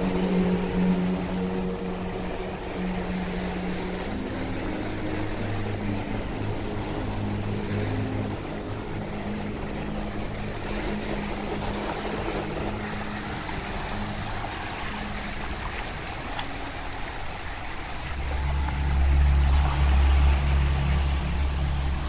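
Small waves washing up and running back on a sandy beach. Under them runs a low steady drone that changes pitch in steps a few times and grows louder near the end.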